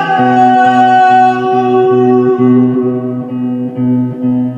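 Guitar accompaniment with a steady, pulsing bass pattern of about two to three notes a second. Over it, a long held note fades out over the first three seconds.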